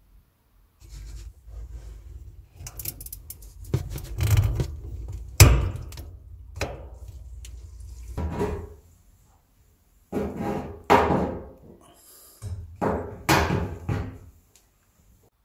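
A series of knocks, thunks and rubbing noises from hands working in and around a stainless steel fresh-water tank, the loudest knock about five and a half seconds in.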